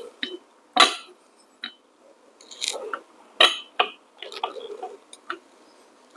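Metal portafilter knocking and clinking against the grinder's portafilter fork as it is set in and pulled out. About half a dozen short, separate clicks, with no grinder motor running.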